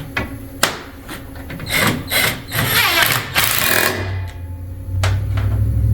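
Clicks, knocks and scraping of hand tools on metal pump parts, then a low steady hum that begins about four seconds in.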